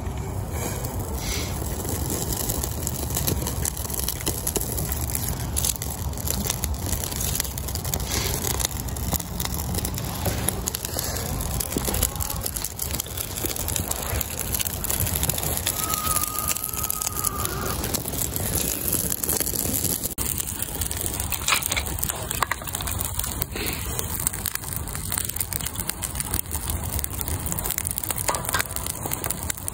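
Small kindling fire of birch bark and twigs crackling in a steel fire pit, with many small sharp snaps and cracks as sticks are laid over it, against a steady low rumble.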